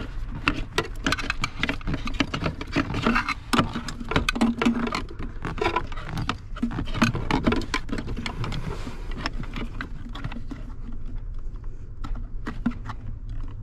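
Irregular light clicks, taps and scraping from a screwdriver working against the plastic fitting of a seat-bolster air pump, prying the air line up from the bottom to pop it off. A steady low hum runs underneath.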